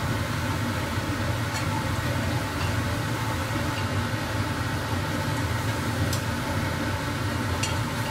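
Kitchen range hood extractor fan running with a steady low whoosh. A few light clicks of tongs against oyster shells and a plate.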